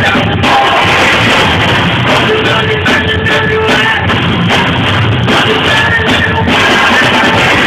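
Live rock band playing loud: electric guitar and drum kit, recorded through a mobile phone's microphone.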